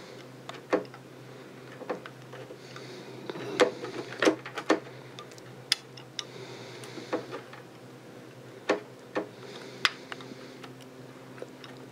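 Irregular small clicks and taps, about ten, with soft scraping between them, as a thin metal tool pokes and nudges the plastic vertical-mode push buttons of a Tektronix 468 oscilloscope into line with their holes in the front panel.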